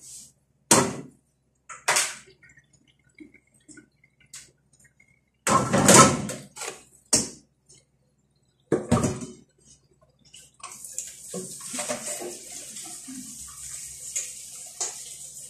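Several sharp knocks and clatters of kitchenware, then from about eleven seconds in a steady hiss of water.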